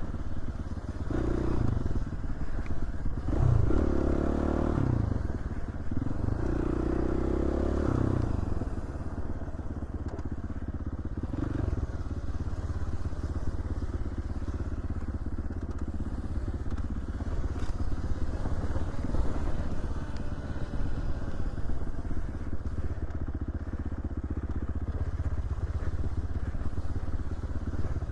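Dirt bike engine on a trail ride, revving up and down in several bursts over the first eight seconds or so, then running more steadily.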